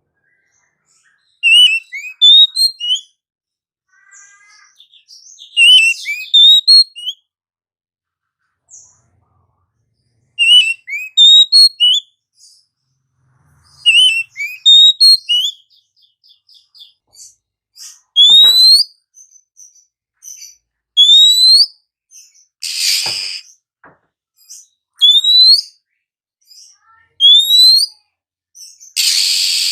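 Oriental magpie-robin of the black-bellied 'kacer poci' form singing loudly: busy phrases of varied whistles and chatter, then from about halfway a rising whistle repeated about every two seconds, broken twice by a short harsh rasp.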